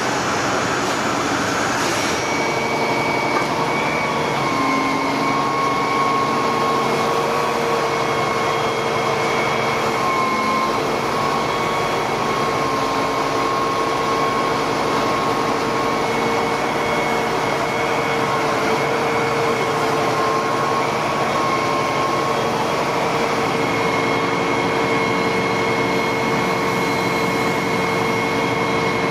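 Combined ladder platform fire truck running its engine at steady raised revs to power the aerial boom, a constant mechanical drone with a high whine that wavers slightly now and then.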